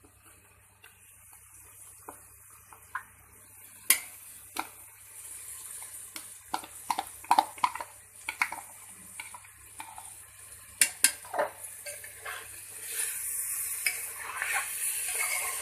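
Metal spoon clinking and scraping against a pressure cooker pot while stirring in soaked soya granules, with scattered sharp knocks. A faint sizzle of frying masala grows louder near the end.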